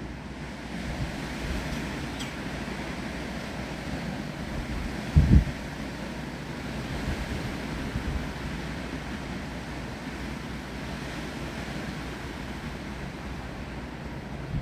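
Wind blowing through trees with rain falling, a steady rushing hiss. About five seconds in, a brief low buffet of wind hits the microphone.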